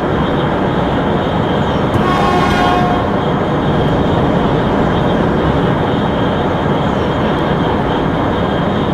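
Taiwan High Speed Rail 700T train running at speed, a loud, steady rushing noise, with a brief tone like a horn about two seconds in.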